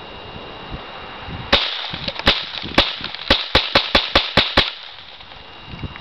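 Ruger .22/45 semi-automatic .22 LR target pistol firing about ten shots, starting about a second and a half in, the shots coming faster toward the end.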